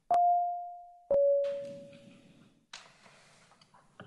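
Two-note descending electronic chime, a higher note then a lower one a second later, each ringing out and fading: the chamber's voting-system signal during a committee roll call. A brief rustle follows near the end.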